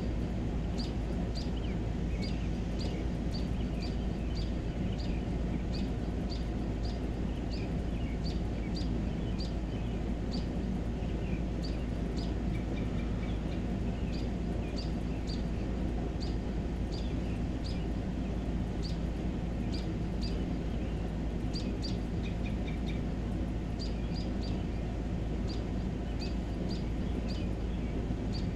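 A short high chirp repeating steadily about twice a second, over a constant low rumbling background noise.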